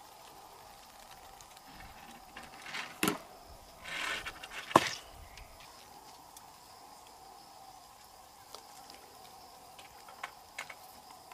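Fishing tackle being handled on a riverbank: brief rustling and knocking about three to four seconds in, ending in one sharp click, then a couple of faint clicks near the end, over a faint steady background hum.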